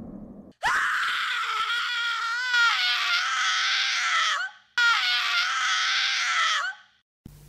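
A woman screaming: two long, high-pitched screams, the first starting about half a second in and lasting about four seconds, the second shorter and following right after a brief break, each dropping in pitch as it ends.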